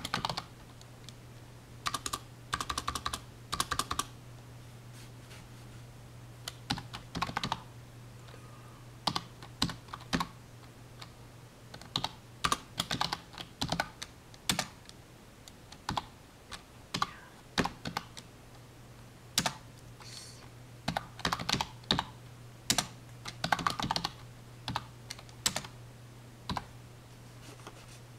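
Typing on a computer keyboard: irregular runs of key clicks with short pauses between them, over a steady low hum.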